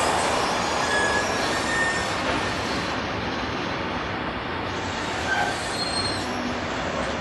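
Freight train wagons loaded with steel pipes rolling past on the rails: a steady rumble and rush of wheels on track, easing slightly in the first couple of seconds, with a few brief, thin wheel squeals.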